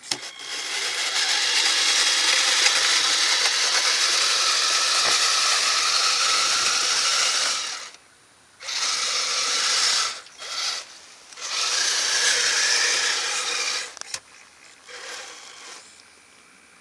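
Kyosho Blizzard FR radio-controlled snowcat's electric motor, gearbox and tracks running in bursts as it is driven: one long run of about eight seconds, a short pause, then two shorter runs and a few brief blips.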